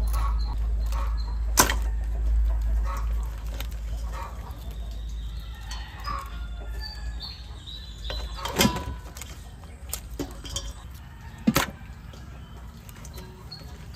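Three sharp knocks, the loudest about 1.6 s, 8.6 s and 11.6 s in, with a few fainter ones, over a low rumble that fades away, and short faint high chirps now and then.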